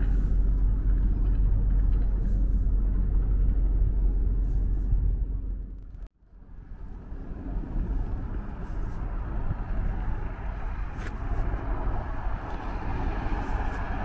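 Steady low rumble of a moving passenger train, heard from inside the carriage. The sound fades away about six seconds in, drops out almost completely for a moment, then comes back at much the same level.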